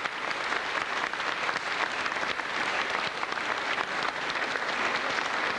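Congregation applauding steadily: many hands clapping at once.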